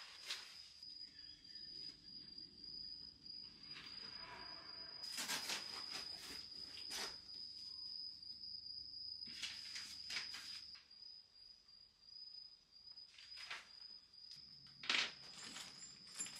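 Rustling and light knocks of hands handling cardboard packaging and plastic-bagged flat-pack furniture parts, in several short bursts. Under it runs a steady, faint high-pitched tone.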